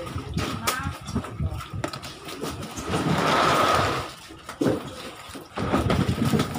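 Knocks and clatter of plastic basins and fish being handled. About three seconds in, a rushing noise lasts about a second and is the loudest sound.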